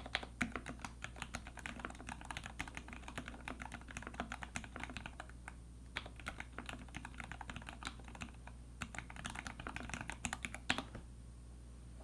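Typing on a TX Keyboard EO87 mechanical keyboard with Tribosys-lubed Gateron Ink Black linear switches on a brass plate and GMK keycaps: a fast run of keystrokes with a short pause a little past halfway. A louder stroke comes near the end, and then the typing stops.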